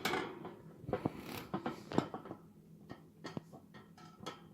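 Irregular scratching and light clicking of a small pet bird's claws and beak on a coconut-shell hut and its cage wire as it climbs out, busier in the first two seconds and then sparser.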